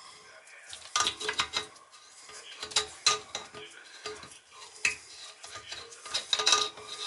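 Metal hardware and tools clinking and rattling in short clusters, about four bursts a couple of seconds apart, as toilet tank bolts, washers and nuts are handled and fitted.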